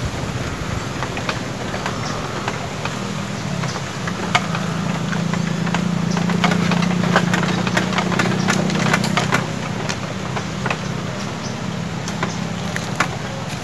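A steady low hum like a distant engine, louder in the middle, under a run of scattered sharp clicks and taps from about four seconds in, the handling of a float rod and line as a small fish is struck and lifted out of the river.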